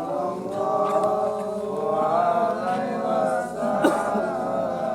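A voice chanting in long, drawn-out notes that waver and glide in pitch, without breaking into ordinary speech.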